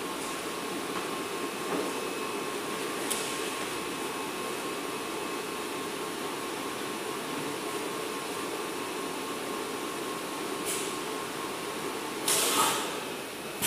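Luggage vacuum forming machine running with a steady drone and a faint steady whine. Near the end comes a short, loud burst of hissing air.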